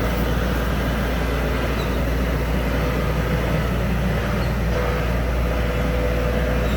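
New Holland skid steer's diesel engine running steadily under tracks, with a faint steady tone joining about five seconds in.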